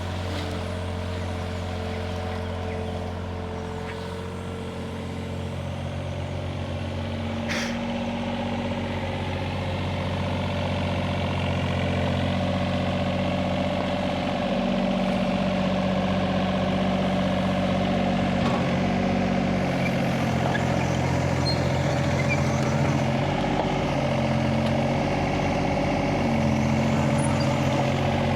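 Hitachi mini excavator's diesel engine running continuously, its low drone stepping up and down in pitch every few seconds as the load shifts while it works.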